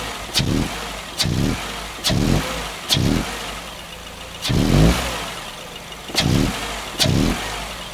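2012 Subaru Forester's flat-four engine revved in short blips under load, about one a second, with a longer rev near the middle and a sharp rattling click at most of them. The rattle is spark knock (pinging), which the mechanic puts down to detonation or pre-ignition of lower-octane fuel.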